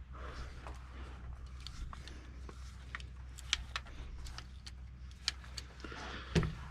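Scattered light clicks and taps of hand work on the combine's metal parts, a few sharper ones about three and a half, five, and six seconds in, over a steady low hum.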